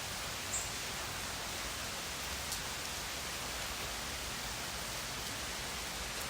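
Steady rain, an even, continuous hiss, with two brief sharp drop ticks, about half a second in and again about two and a half seconds in.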